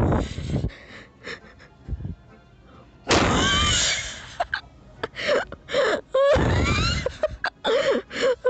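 A person wheeze-laughing: long breathy, squeaky wheezes about three and six and a half seconds in, with short gasping pulses of laughter between them.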